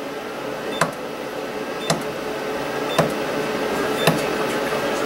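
Sunstone capacitive-discharge micro spot welder firing through a copper rolling electrode on thin steel sheet: a sharp snap with each weld pulse, about once a second, four times, over a steady hum.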